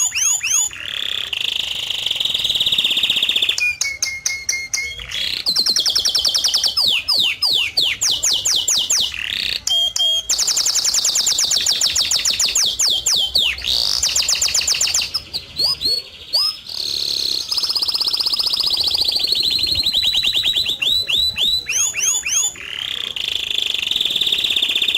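Background soundtrack of rapid, high chirping trills and held whistled tones, repeated in quick runs throughout.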